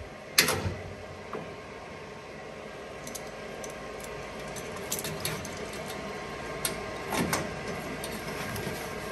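Steel locking clamps and vise-grip pliers clicking and clanking against a steel chassis rail as they are set and adjusted: one sharp clank about half a second in, then scattered lighter clicks and a short clatter near the end, over a steady background hum.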